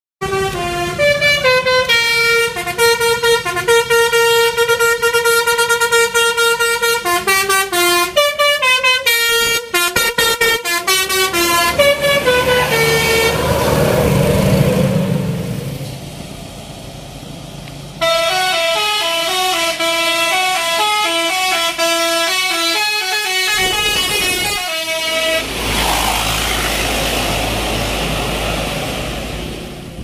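Indonesian bus telolet basuri multi-tone horns playing a stepping melody, in two separate tune sequences, with the rumble of a bus passing in between and at the end.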